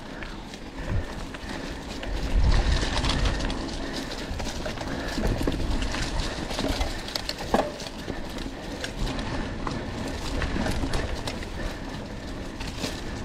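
Mountain bike ridden over a forest trail: tyre noise with frequent clicks and knocks from the bike rattling over the ground, and a low rumble that swells about two seconds in.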